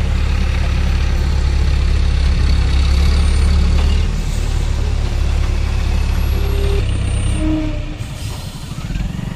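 Diesel engine of an ACE mobile crane running steadily at a fast, loud pace, then easing down near the end.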